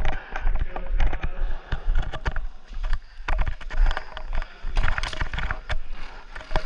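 A player's footsteps and gear rattling as he moves, heard as an uneven run of clicks and knocks over a low rumble on the camera microphone.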